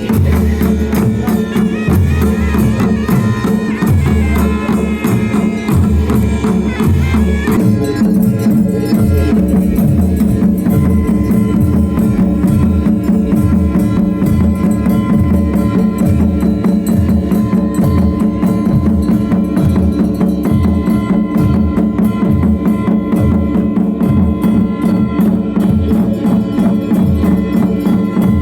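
Music: a steady drum beat with hand percussion over a sustained low drone. A higher melodic line drops out about eight seconds in.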